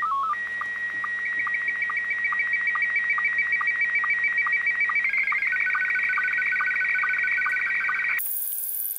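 Scottie 1 slow-scan television (SSTV) signal, a steady stream of warbling beeps with evenly repeating sync pips, as an image goes out from the Guohetec Q900 and comes through the Quansheng handheld receiving it. Near the end the sound cuts abruptly to a hum with a high whine.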